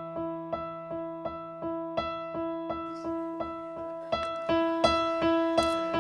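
Background music: a piano-style keyboard playing a steady run of evenly spaced notes, a little under three a second, growing louder about four seconds in.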